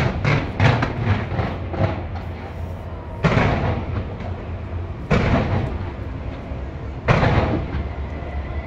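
Fireworks bursting: a quick run of bangs in the first two seconds, then single heavier booms about three, five and seven seconds in, each trailing off in an echo over a steady low rumble.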